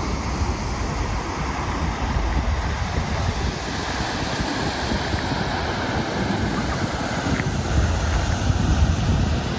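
Wind buffeting the microphone, a steady rushing noise with a fluttering low rumble, over outdoor city street ambience.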